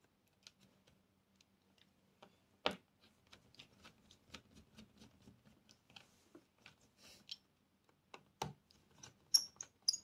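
Small scattered clicks and taps of a screwdriver, screws and the drive's mounting parts being handled in the open case of a 2012 MacBook Pro as the drive is fitted back in and screwed down. There are a couple of sharper knocks, and a few brief high-pitched chirps near the end.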